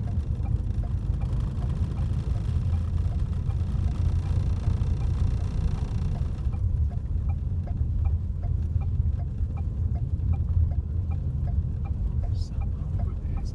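Car driving on a snow-covered highway, heard from inside the cabin: a steady low rumble of engine and tyres, with faint regular ticking.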